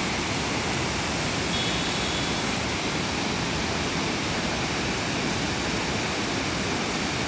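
Swollen, silt-laden mountain river rushing through whitewater rapids around boulders: a steady, very loud rush of water.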